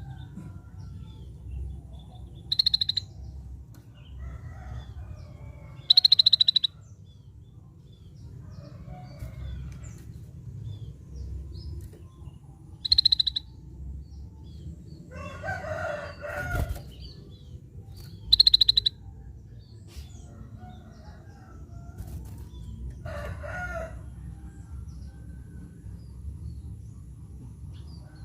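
Scaly-breasted bulbul calling: five short, loud, buzzy high-pitched notes, each about half a second, spaced several seconds apart. Two longer, lower calls from another bird come between them, over a steady low background rumble.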